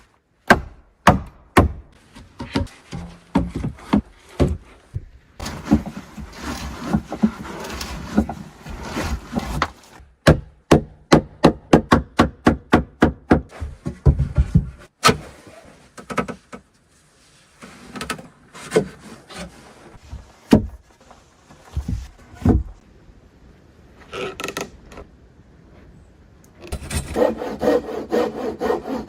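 Wood being worked with hand tools: sharp knocks on wood, a fast run of about five strikes a second near the middle, and stretches of scraping or sawing on wood.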